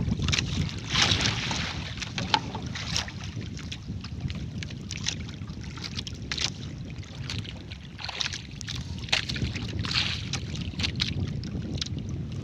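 Wind rumbling on the microphone and sea water slapping and splashing against a small outrigger boat's hull in frequent short splashes.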